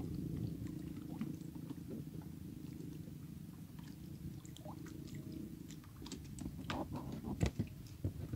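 Low steady rumble of water moving around the wading angler. Near the end come sharp plastic knocks and crinkles as the floating red plastic container is handled and opened and the plastic bag inside is touched.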